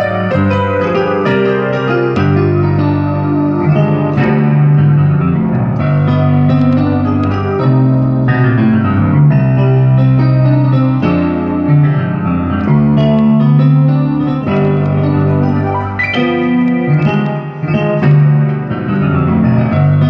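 Piano-voiced keyboard playing a continuous piece, held bass notes under a moving melody.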